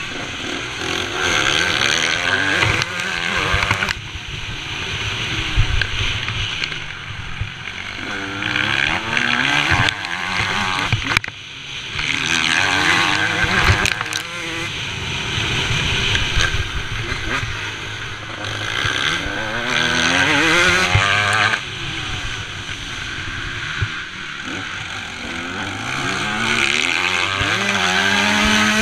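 Motocross bike engine heard from the rider's helmet, revving up hard and dropping back again and again as it accelerates and shifts through the gears, with wind rushing over the helmet.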